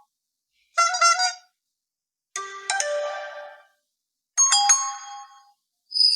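Honor 7A smartphone playing its preset alert chimes one at a time: three short melodic chimes, each about a second long, with silent gaps between them. A new steady ringing tone begins just before the end.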